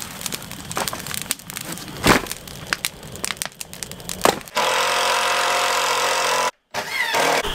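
A wood fire crackling, with a couple of thuds as split logs are tossed into the fire pit. About four and a half seconds in, a cordless drill runs loudly and steadily for about two seconds, then cuts off suddenly.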